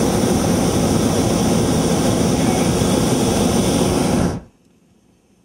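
A hot air balloon's propane burner firing: a loud, steady roar that cuts off suddenly after about four and a half seconds.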